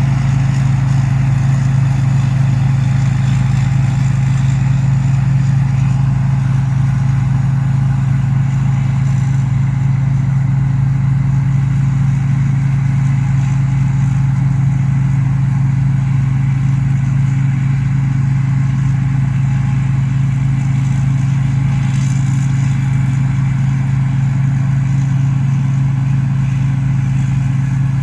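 An engine running steadily at constant speed with a strong, even low hum and no change in pitch or load.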